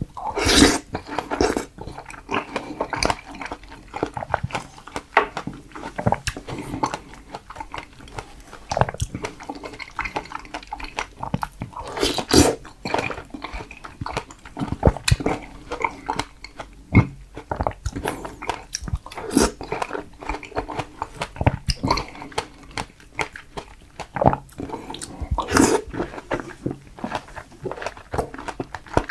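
Close-miked chewing and biting of strawberries, with wet mouth smacks and squelches coming irregularly and several louder bites.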